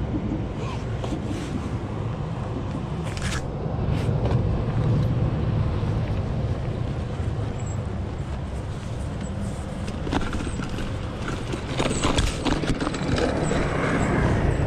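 Outdoor street noise: a steady low rumble of road traffic, with a few short clicks and knocks about three seconds in and again around twelve seconds in.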